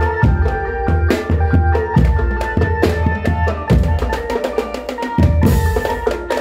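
Music: a drum kit beat, with bass drum and snare, under a held melody line, and a cymbal crash near the end.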